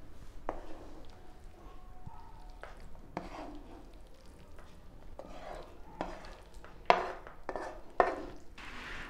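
Spatula scraping sautéed vegetables out of a frying pan into a plastic bowl of couscous: a run of short scrapes and soft knocks against the pan, the loudest about seven seconds in.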